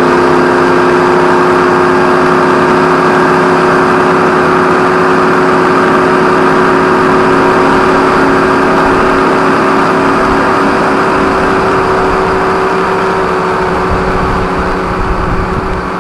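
Small-block Chevrolet V8 of a 1936 Hudson Terraplane land-speed car running at steady high revs at speed on a salt-flat run. The engine note holds one pitch, and its level falls a little near the end.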